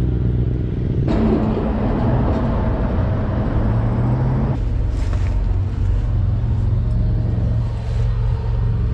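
City street traffic: cars driving past, a steady low rumble, with one passing vehicle louder from about one second in to about four and a half seconds in.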